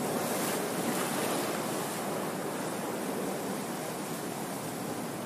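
Steady rushing noise with no clear source, like surf or wind, with a slight swell in the hiss about half a second in.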